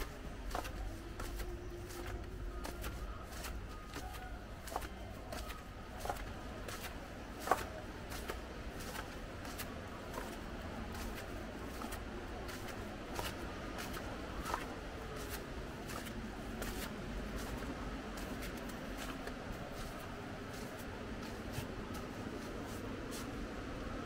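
Footsteps crunching on beach sand at a steady walking pace, about two to three steps a second, over a low steady rumble.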